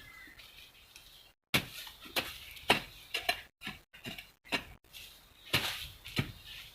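Irregular crackles and rustles of plastic bags being handled and pulled from the ground, a string of sharp crinkling clicks at uneven intervals.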